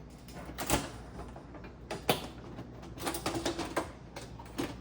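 Scattered knocks and clicks of a replacement glass panel being settled onto its rest spots inside a GE oven door, glass against the door's metal frame, with a quick run of small taps a few seconds in.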